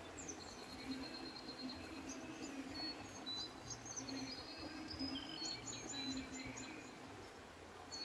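Songbirds chirping and whistling, many short high calls, with a quick run of short repeated notes about two-thirds of the way through, over a steady low outdoor background.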